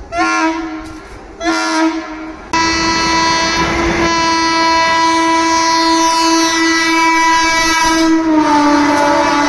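Indian Railways locomotive horn: two short blasts, then one long held blast whose pitch drops a little near the end.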